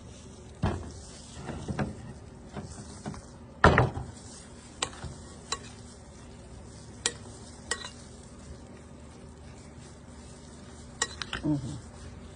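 A spoon stirring mayonnaise into a chicken filling, with scattered clinks and knocks of the spoon against the dish, the loudest about four seconds in.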